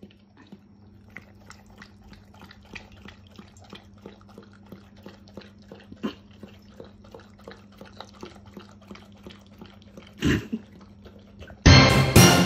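A Doberman lapping milk from a stainless-steel bowl: a steady run of small wet laps, about three a second, over a faint steady hum. A single louder sound breaks in about ten seconds in, and a loud, different sound starts shortly before the end.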